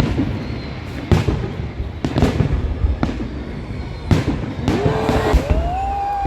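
Fireworks show: aerial shells bursting with sharp bangs about once a second over a steady low rumble. Late on, a pitched tone rises, holds and then falls away.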